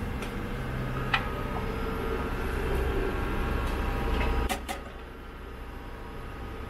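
Steady drone of a sailing yacht's engine running under way, with a click about a second in and two sharp wooden knocks about four and a half seconds in as the wooden cockpit table leaf is folded out.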